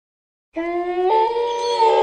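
Wolves howling in chorus: several long held notes at different pitches, starting abruptly about half a second in after silence.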